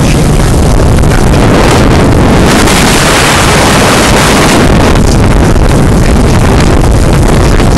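Wind buffeting the microphone of a motorboat under way, over the steady rumble of the boat's engine and water rushing past the hull; the wind noise swells louder for about two seconds near the middle.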